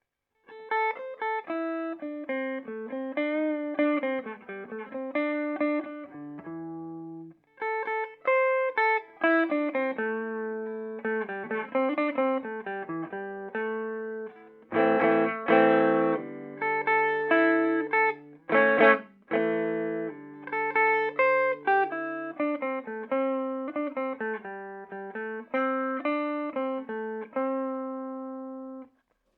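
Electric guitar played clean through a Peavey Bandit 112 combo amp's 12-inch Blue Marvel speaker, on the clean channel in modern voicing from the high-gain input. It plays melodic single-note lines and chords, with a short pause about seven seconds in and a few sharply strummed chords around the middle, and ends on a held chord.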